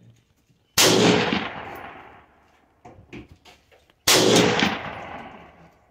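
Two rifle shots from a scoped rifle fired from a bench rest, about three seconds apart. Each crack is sudden and loud and trails off over about a second and a half. A few faint clicks fall between them.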